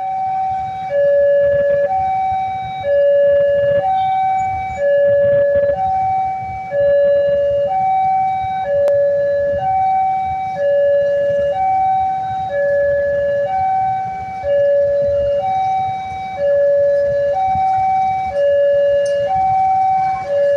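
Level-crossing warning alarm sounding as a train approaches, an electronic two-tone signal going back and forth between a higher and a lower tone, each held just under a second, over a low rumble.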